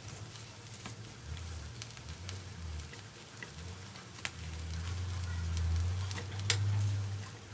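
Whole shrimp roasting on a bed of coarse salt in a foil-lined pan, crackling and sizzling with scattered sharp pops and clicks as tongs shift them. A low rumble swells in the second half.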